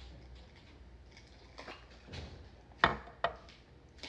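Crushed ice clinking in a glass mug while it is drunk from, then the glass set down on a granite countertop with a sharp knock a little before three seconds in, followed by a lighter clink.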